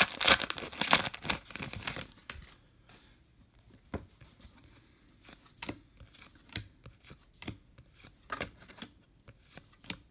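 Foil wrapper of a Topps trading-card pack tearing and crinkling for about two seconds, followed by a scattering of light taps and slides as the cards are handled.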